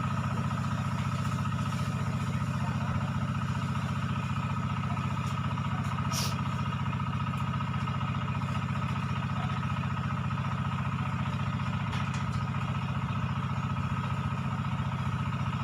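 An engine running steadily: a low, even drone with a thin steady whine above it.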